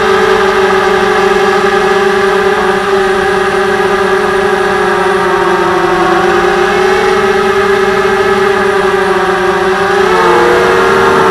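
TBS Gemini FPV multirotor's electric motors and propellers whining steadily in flight, heard through the onboard camera's microphone. The pitch sags slightly midway, then rises and wavers with a throttle change about ten seconds in.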